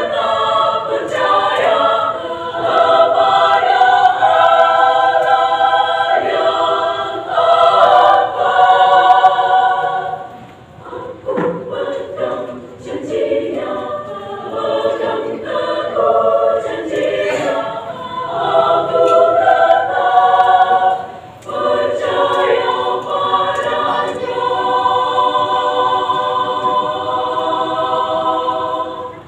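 Women's choir singing in several-part harmony, with a softer dip about ten seconds in and a long held chord near the end that is cut off.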